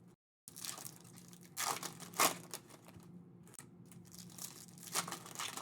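Foil trading-card pack wrappers being torn open and crinkled, in several short bursts.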